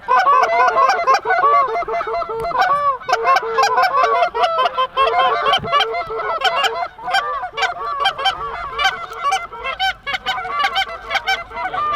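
A flock of Canada geese honking, many short overlapping calls at once, several a second without a break.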